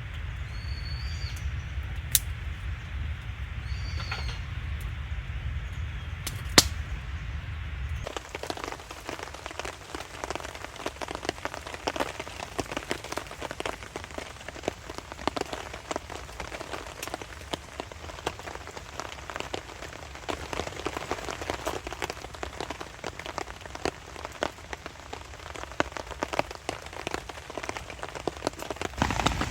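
Rain pattering steadily, a dense even patter of fine drops that starts suddenly about eight seconds in. Before that there is a low steady rumble with two short high bird chirps and a couple of sharp clicks.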